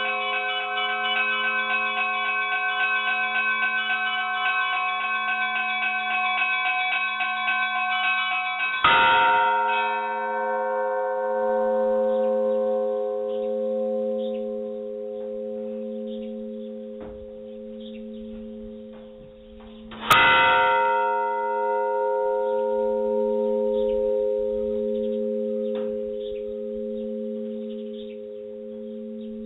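A large church bell struck twice, about nine seconds in and again about eleven seconds later. Each stroke rings out in a long fading tone over a slowly pulsing hum.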